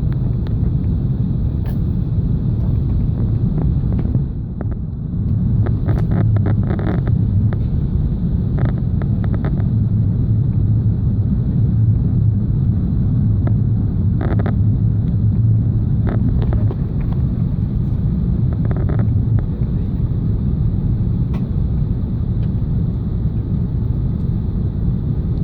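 Steady low rumble of an Airbus A380 cabin, as heard from a window seat, with scattered short rattles and clicks from the cabin fittings.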